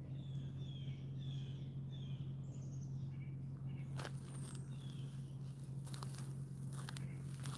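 A small bird calls a string of short, high, falling chirps through the first few seconds, and again briefly near the middle. In the second half, footsteps crunch on a leaf-covered dirt trail. A steady low hum runs underneath throughout.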